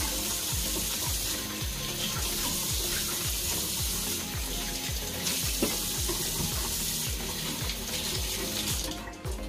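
Kitchen tap running as small apples are rinsed under it; the water shuts off about nine seconds in. Background music with a steady beat plays underneath.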